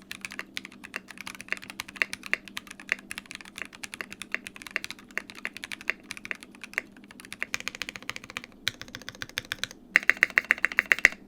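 Typing on a Qwertykeys QK60 60% gasket-mounted custom mechanical keyboard with SP Star Marble Soda Melon linear switches on an aluminium plate, built with no foam and with the aluminium top case, which adds a slight metallic ping. The keystrokes come quickly throughout, with about a second of rapid, evenly spaced strokes near the end.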